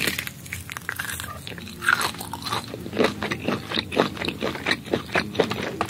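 Close-miked mouth sounds of biting and chewing steamed lizard meat: a run of wet, crunchy crackles and smacks, coming faster and louder after about two seconds.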